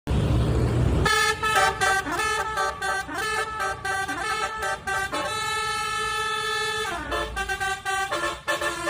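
Basuri multi-tone vehicle horn playing a melody. Its stacked horn notes change in quick steps, with a few short downward slides in pitch and one chord held for nearly two seconds in the middle. A low rumble comes before the horn, which starts about a second in.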